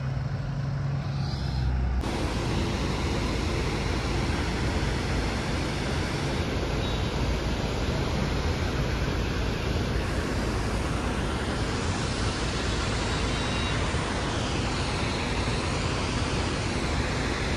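Car on a rough unpaved mountain road: a low engine hum for about two seconds, then a sudden steady rushing noise of tyres and wind that holds to the end.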